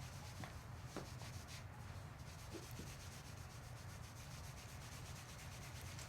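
Soft rubbing and shifting of hands, clothing and body against the chiropractic table's cover, with a few faint ticks in the first few seconds, over a steady low hum.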